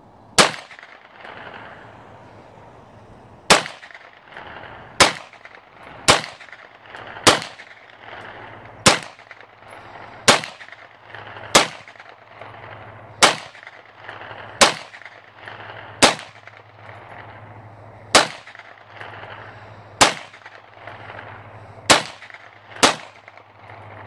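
CZ Scorpion EVO 3 S1 carbine firing 9mm Fiocchi 115-grain FMJ rounds as slow single shots: about fifteen shots, roughly one every second and a half, each sharp report followed by a short echo.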